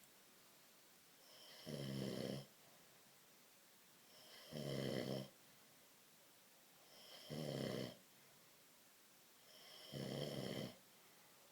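A man snoring in his sleep: four snores, each under a second long, coming regularly about every two and a half to three seconds, with near quiet between them.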